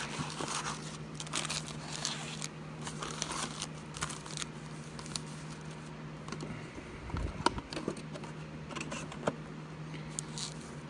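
A cardboard hobby box of Donruss football cards being opened and its foil-wrapped packs pulled out and stacked: scattered rustling, crinkling and light taps, over a steady low hum.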